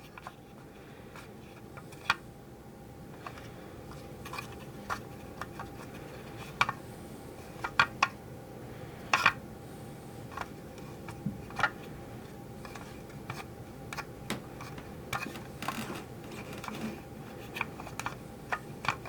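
Scattered light clicks and taps, irregular and about one every second or two, from a small plastic toy wheel and fingers as epoxy putty is pressed into it by hand. A faint steady hum runs underneath.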